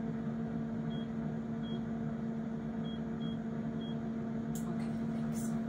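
Instant Pot air fryer's control panel beeping five times, short high beeps at uneven intervals, as its cooking timer is set to 12 minutes. A steady low hum runs underneath, with a couple of faint clicks near the end.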